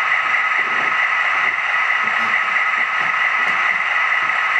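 Diesel engine sound from an HO-scale SD45T-2 model's LokSound DCC sound decoder, heard through its small speaker as a steady hiss with a high whine and faint low rumbling.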